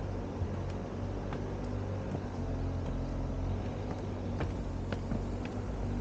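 Steady low machine hum, with a few faint short clicks scattered through it.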